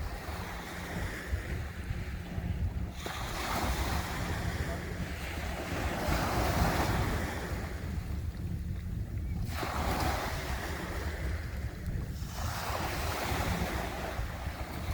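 Sea waves washing in, swelling every three to four seconds. Wind buffets the microphone underneath as a steady low rumble.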